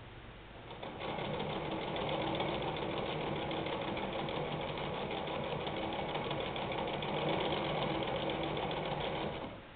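Singer 99K sewing machine running steadily at speed with a fast, even stitching clatter. It starts about a second in and stops shortly before the end.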